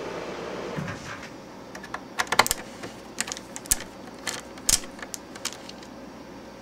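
Scattered light clicks and taps of a screwdriver working the rear corner screws of a Tektronix TCPA300 amplifier's case, with hands handling the case, irregular and starting about two seconds in.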